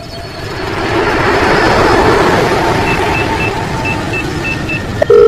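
Vehicle driving sound effect: engine and road noise swelling to a peak about two seconds in, then easing off, with a string of faint short high beeps over it. Right at the end a loud telephone ringing tone starts.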